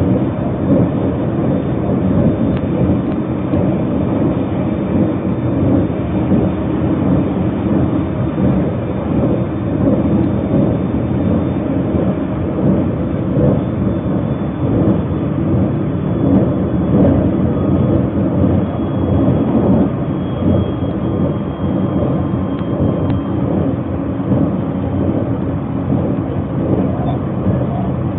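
Steady rumble of a Narita Express train running at speed, heard from inside the passenger car. A faint high whine rises over it in the middle stretch.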